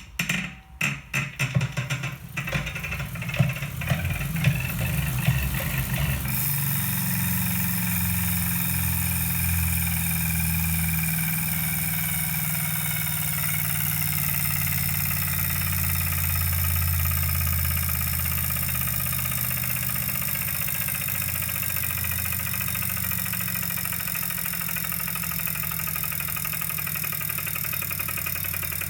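Wahoo Kickr 2018 direct-drive smart trainer running under pedalling: irregular clicks and knocks for the first six seconds or so, then a steady low hum with a high whine. This is the noise that the owner says appeared after almost 100 km of riding.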